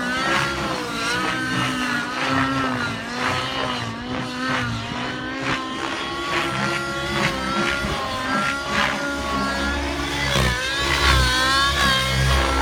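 Synergy N7 radio-controlled helicopter's nitro engine and rotor blades in aerobatic flight, the pitch wavering up and down with the manoeuvres.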